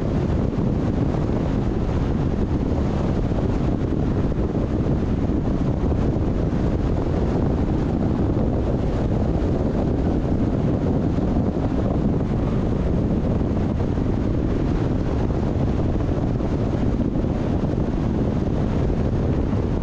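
Steady rumble of a car driving at speed: tyre and road noise mixed with wind rushing over the microphone, even throughout with no engine pitch changes.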